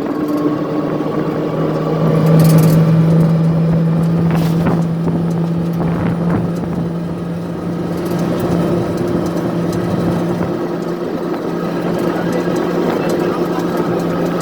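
A motor engine running steadily with a constant low hum.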